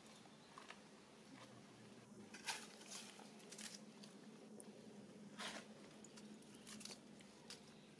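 Faint scattered rustles and light taps of monkeys moving about on stone steps strewn with dry leaves, over a low steady hum.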